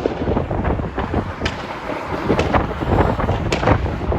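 Many fireworks bursting at once, an irregular stream of overlapping bangs and crackles over a low rumble, with wind buffeting the microphone.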